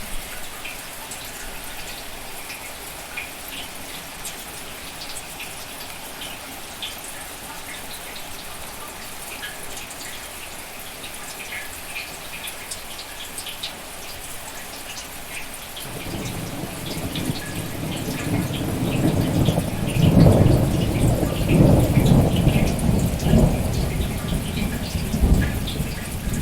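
Steady rain with individual drops ticking, and about sixteen seconds in a long low roll of thunder builds up and rumbles on, much louder than the rain.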